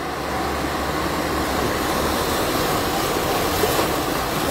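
Steady rush and churn of floodwater as a car drives through a flooded street, pushing a wake; an even wash of water noise with a faint low rumble underneath in the first couple of seconds.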